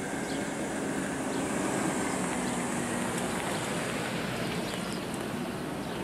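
2002 BMW E39 520i's 2.2-litre straight-six driving off, its low engine note fading out about halfway through, under a steady rush of wind on the microphone.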